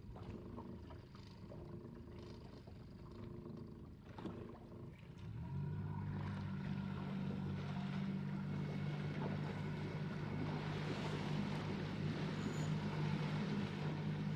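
Small boat's outboard motor coming up from a low idle to a steady trolling run about five seconds in, then holding an even low drone, with the hiss of water and wind along the hull building after it.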